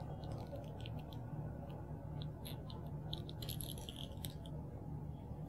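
Faint, light clicks and taps of plastic toy pieces being handled, a small flurry of them about three and a half seconds in, over a steady low hum.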